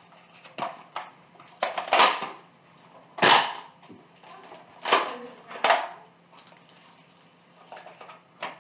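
Nerf Fortnite pump-action mega dart blaster being pumped and fired: a string of sharp plastic clacks and shots, the loudest about three seconds in.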